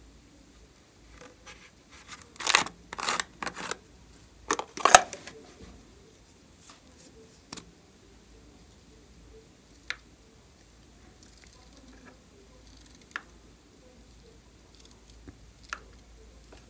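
Hands handling small plastic containers: a run of sharp crinkling and scraping strokes for about three seconds, then a few single light clicks several seconds apart.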